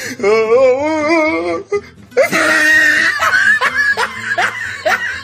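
A voice holds one long wavering note, then laughs repeatedly in short rising bursts over music.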